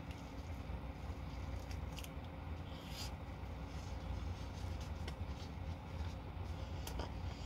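Low steady hum of an idling truck engine inside the cab, with a few faint crunches of chewing crispy fried chicken.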